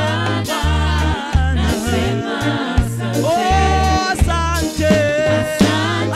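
Live gospel reggae band: a lead singer and backing vocalists singing over a rhythmic bass line, drums, keyboard and electric guitar.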